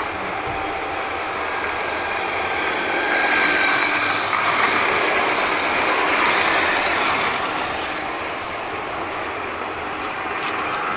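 Battery of 00 gauge model trains running: small electric motors whirring and wheels running on the rails as a steady noise, loudest from about three to seven seconds in as a train passes close by.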